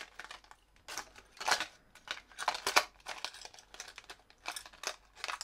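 Fishing lures and their plastic packaging being handled: irregular rustles and light clicks, a handful of separate bursts.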